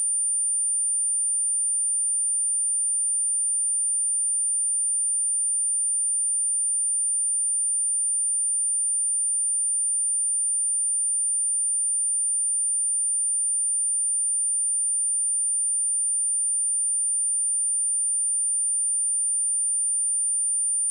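Steady, unbroken 9185 Hz sine test tone, a single high-pitched whistle-like pure tone, used as a speaker test and speaker-cleaning tone.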